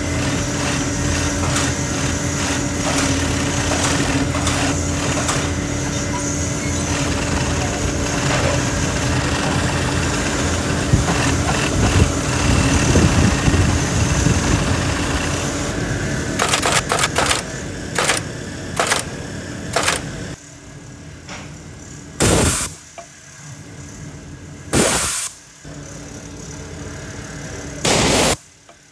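Industrial sewing machine stitching a leather boot upper, running steadily with a constant motor hum, then in a few short stop-start runs. Later come three separate short bursts a few seconds apart from an eyelet-setting press.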